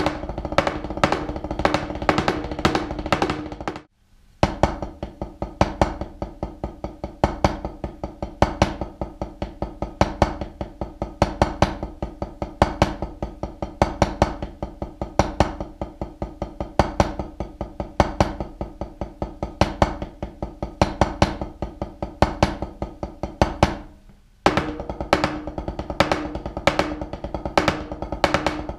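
Drumsticks playing fast double-stroke sixtuplets on a practice pad laid on top of a wooden snare drum, with a louder accented stroke coming at regular intervals. The playing stops briefly about 4 seconds in and again near the end, and resumes each time at a new tempo: slower after the first break, faster after the second.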